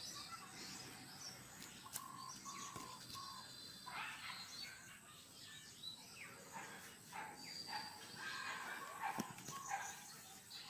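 Birds chirping and calling, short chirps and falling calls throughout, with two sharp clicks, one about two seconds in and one near the end.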